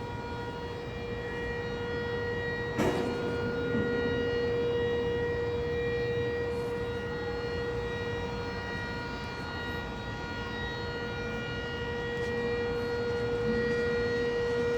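Motor-driven civil-defence air-raid siren sounding one long steady tone, heard from indoors; a single long tone is Taiwan's all-clear signal. A sharp knock about three seconds in.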